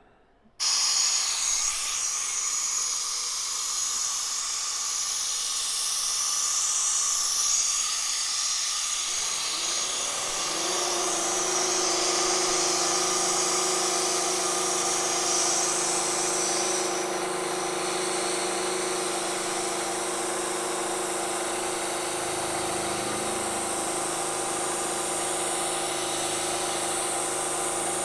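Milling machine running, its end mill cutting a slot in a swage block with a steady hissing cut that starts abruptly. About ten seconds in, a steady motor hum joins it.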